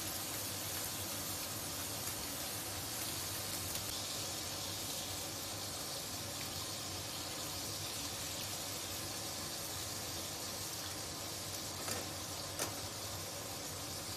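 Sliced pork sausage frying in oil in a wok: a steady, even sizzle, with two sharp clicks near the end.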